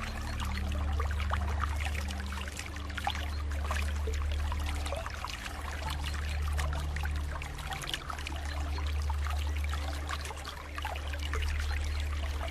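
Flowing water trickling and splashing steadily, under soft, low sustained music notes that shift every second or two.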